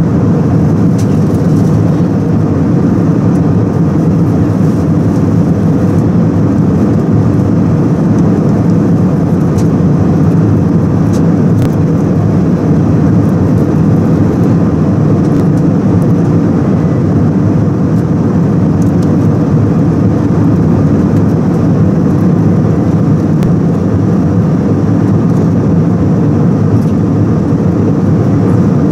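Steady, deep cabin noise of an Airbus A319-111 airliner in cruise: the drone of its CFM56-5B turbofan engines and rushing airflow, unchanging throughout.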